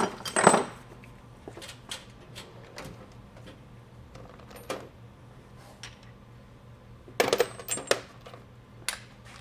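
Metal tools clinking and clanking as they are handled in a metal tool tray, with a louder clatter about half a second in and a quick run of clanks near the end.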